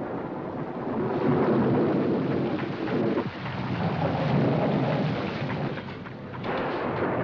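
Thunderstorm sound effect: rolling thunder over steady rain, swelling and easing in waves.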